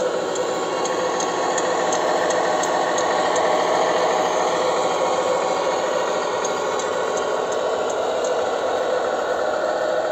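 A 1/14-scale radio-controlled Scania R730 tractor truck running: a steady mechanical whir.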